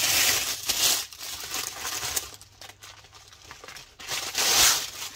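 Crinkly packaging wrap being handled, crackling in irregular bursts, loudest in the first second and again about four and a half seconds in.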